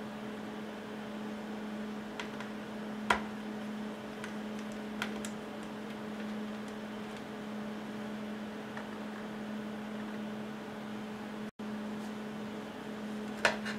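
A few sharp clicks of a small screwdriver and screws handled against a MacBook Pro's hard-drive bracket as the drive is unscrewed and lifted out, over a steady low hum. The loudest clicks come about three seconds in and just before the end.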